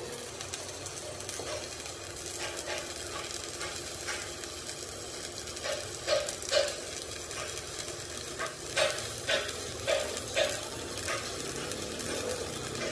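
Workshop metalwork: a steady sizzling hiss with a scattered run of sharp, slightly ringing taps, most of them between about six and ten seconds in.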